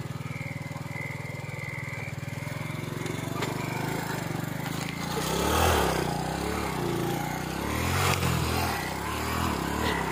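Small Honda motorcycle's engine running steadily at low speed, then revved up and down several times from about halfway through as it is ridden over rutted mud.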